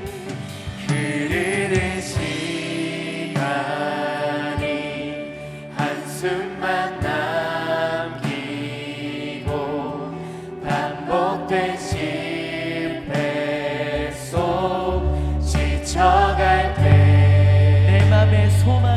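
Christian worship music with singing voices over instrumental backing. A deep, steady bass tone comes in about fifteen seconds in and grows louder near the end.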